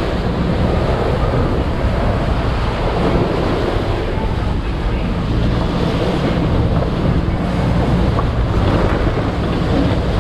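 Wind buffeting the microphone over the steady rush of choppy waves washing past the bow of a sailboat under sail in about 20 knots of wind.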